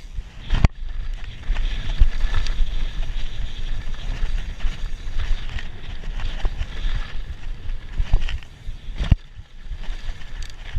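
Trek Remedy 29 full-suspension mountain bike descending a trail: a steady rush of wind and tyre noise with a low rumble, broken by frequent knocks and thumps as the bike rattles over the ground, the sharpest about a second in and just after nine seconds.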